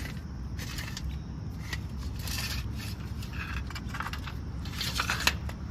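In-shell peanuts rattling and scraping against each other in a tray as a hand picks through them, in several short bursts, the loudest near the end. A low steady rumble runs underneath.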